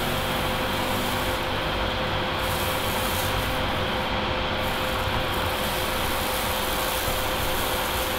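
Fume extractor fan running steadily: an even rush of air with a constant hum, drawing off the smoke from the soldering flux.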